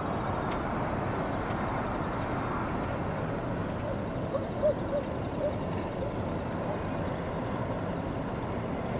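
A steady low rumble and hiss, with small birds chirping over it throughout and a few lower, louder bird calls about halfway through.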